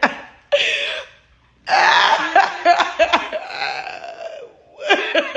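A person's throaty, breathy vocal noises, not words: a short burst about half a second in, then a longer rasping stretch lasting nearly three seconds.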